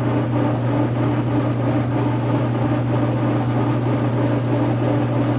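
Metal lathe and phase converter running with a steady electrical hum, while emery cloth wrapped around a file is pressed against a spinning transfer case shift ring. A fine scratchy hiss joins under a second in as the abrasive polishes down galling left by a bad shift fork.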